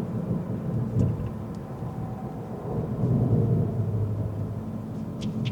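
Steady low rumble of a car being driven: engine and road noise. A few light clicks come through about a second in and again near the end.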